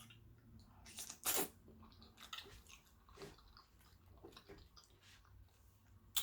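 Close mouth sounds of someone chewing soft baked macaroni and cheese: scattered wet smacks, the loudest about a second in, and a short sharp click near the end.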